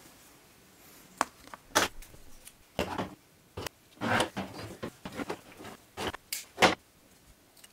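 Irregular clicks, taps and short rustles of hands working a string silencer jig, handling yarn and rubber bands on a table.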